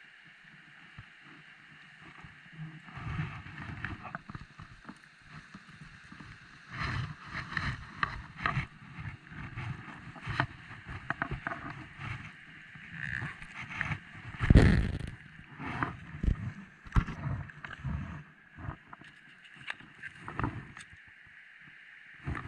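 Steady rush of a river current running over a riffle, with irregular knocks and rubbing from handling close to the camera, the loudest a single thump about halfway through.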